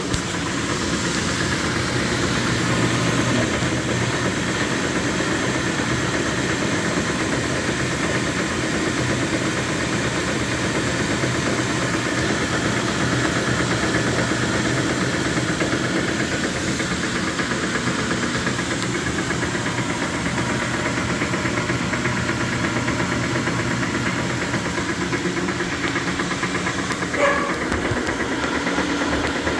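Speed Queen TR-series top-load washer running with a loud, steady clunking and knocking: the sign of play in the drive pulley, whose retaining nut has worked loose on the shaft. Near the end there is one brief, sharper sound.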